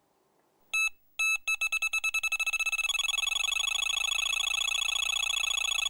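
Electronic alarm beeping in one high tone: two separate beeps about a second in, then beeps coming ever faster until they merge into a rapid continuous trill.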